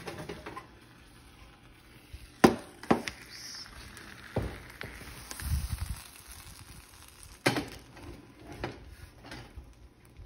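Metal baking sheet clanking against the oven rack and stovetop as a pie is pulled from the oven. There are several sharp knocks, the loudest about two and a half seconds in, and a low scraping rumble around the middle.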